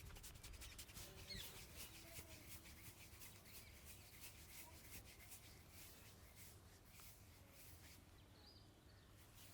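Faint rustling scratches of fingers rubbing through hair and over the scalp during a head massage: many quick, irregular strokes.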